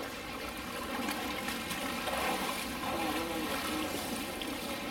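Water splashing and trickling as a polar bear moves through its pool and climbs out, water streaming off its fur. Faint voices murmur in the background.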